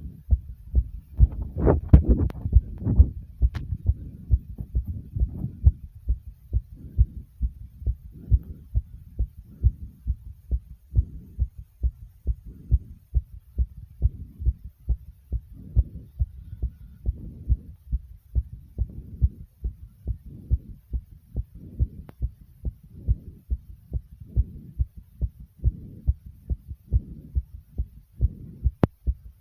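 Human heartbeat pounding fast and regularly, roughly two beats a second, racing after a bout of jumping jacks. A louder, noisier stretch sits over the beats about two seconds in.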